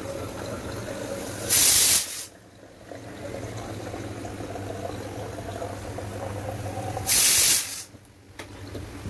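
Pureit Copper water purifier dispensing water into a plastic bottle: a steady low hum with running water, broken twice by a short, loud hiss of about half a second, about a second and a half in and again about seven seconds in. A click near the end.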